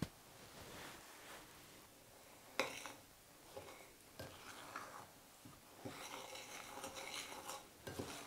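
Metal spoon stirring buttered gingerbread and biscuit crumbs in a glass bowl: faint gritty scraping and rustling, with a light knock about two and a half seconds in.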